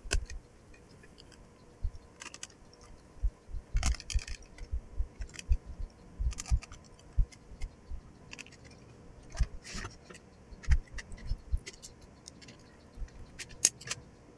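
A plastic landline phone housing and its circuit boards being handled by hand: irregular clicks, taps and light knocks of hard plastic as the keypad board is lifted out of the base.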